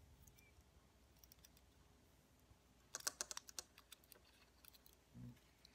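Faint clicks and taps of hard plastic as the white base cover of a Holy Stone HS170 Predator mini drone is handled and pressed onto its frame: a quick cluster of clicks about three seconds in, a few more near the end, and one soft low bump.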